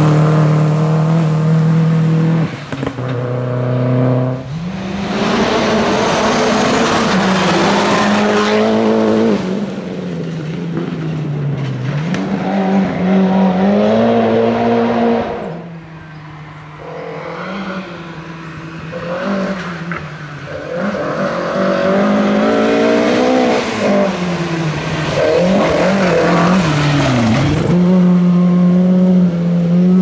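Rally cars driving hard on a gravel stage one after another, among them a Subaru Impreza WRX. The engine note climbs and falls with each gear change and lift, with a hiss as each car passes. About halfway through the sound drops while a car is far off, then builds again as it comes closer.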